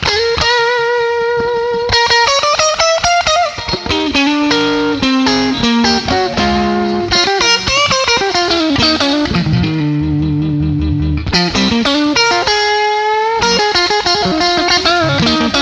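Electric guitar played through a Warm Audio Pedall76 compressor pedal: long sustained single notes with string bends and vibrato, and a short run of lower notes about two-thirds of the way through.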